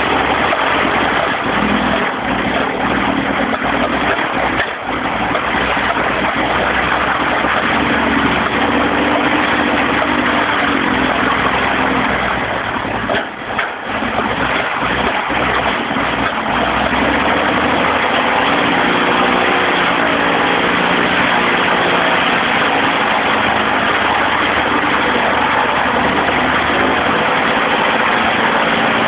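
Lycoming aircraft engine of a wind machine running, with a steady rush of air from its propeller; the engine note shifts slightly in pitch, and the level dips briefly about 5 and 13 seconds in.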